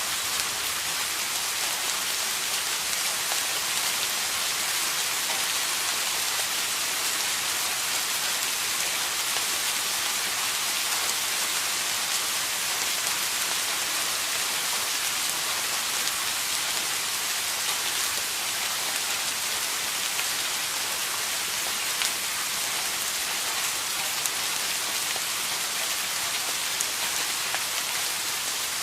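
Steady rain falling on a surface, an even hiss of many drops with no thunder.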